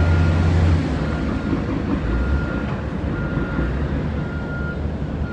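A Mack dump truck's diesel engine running as it manoeuvres, loud for the first second and then easing off, with a backup alarm beeping about once a second.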